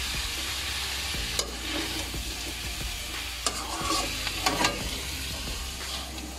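Chop suey vegetables and meat sizzling in a metal wok while a slotted metal spatula stirs and tosses them, with a few sharp scrapes of the spatula against the pan.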